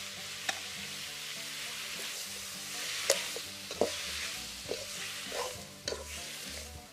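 Chicken pieces sizzling as they fry in a steel kadai, with a metal spoon scraping and clinking against the pan as they are stirred from about halfway through.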